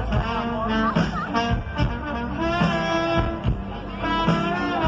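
Band music with a regular drum beat under sustained melodic notes.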